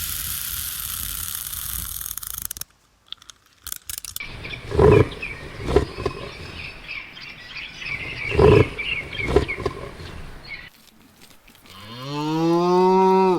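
A steady hiss, then four loud short animal calls over high chirping. Near the end a cow starts a long moo that rises in pitch and then holds.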